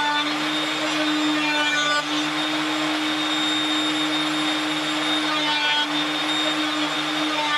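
Woodshop power tool motor running steadily, a constant hum with a high whine, with short changes in tone about two seconds in and again near six seconds as a wooden drum hoop is worked on the machine table.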